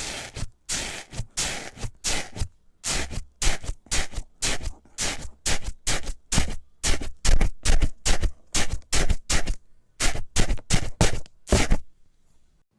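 Slime being worked by hand in a long run of crisp, crunchy scraping strokes, about two to three a second, stopping shortly before the end.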